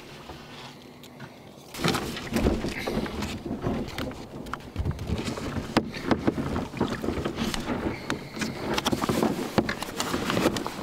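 A person climbing into a kayak: from about two seconds in, a run of knocks, bumps and rustling scrapes as feet and body shift against the hull.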